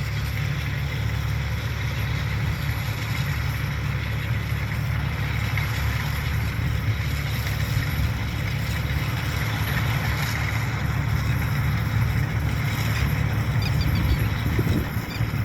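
Zoomlion combine harvester's diesel engine running steadily, a constant low rumble.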